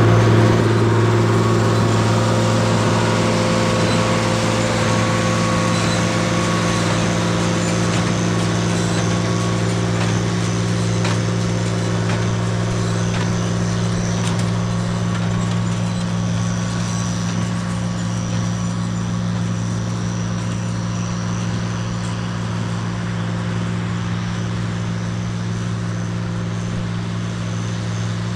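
Tractor engine running steadily under load, driving a small square hay baler working in the field.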